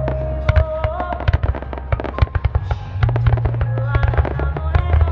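Rapid barrage of fireworks shells bursting in quick succession, many sharp bangs and crackles a second, over loud music with held melody notes and a deep steady bass.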